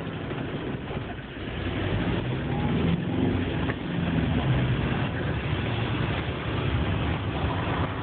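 Motorhome engine and road noise heard from inside the cab while driving, growing louder about two seconds in and then running steadily.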